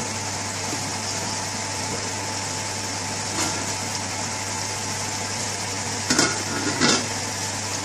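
Spinach sizzling steadily in a frying pan on the stove. About six seconds in, a domed metal lid is set on the pan, giving two short clanks a moment apart.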